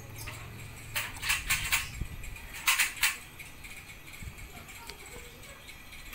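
Indoor unit of a Daikin inverter split air conditioner running, with a few short clattering noises about a second in and again near three seconds in.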